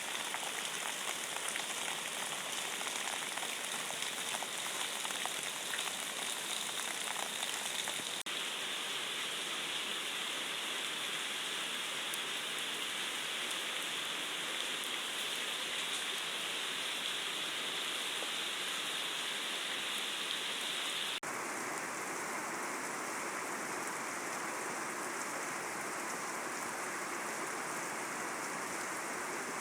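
Steady rain falling, a dense even hiss with faint ticks of single drops in the first stretch. The sound's character changes abruptly twice, about 8 and 21 seconds in.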